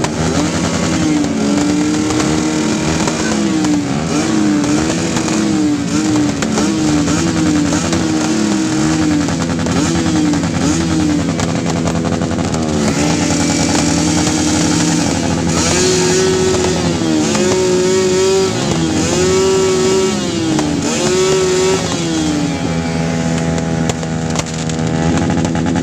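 Several motorcycle engines idling and being revved, their pitch rising and falling again and again.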